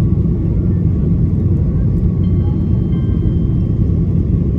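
Steady cabin roar of an Airbus A330-300 on approach, heard from inside the cabin: its Rolls-Royce Trent 700 engines and the airflow make an even, deep rumble.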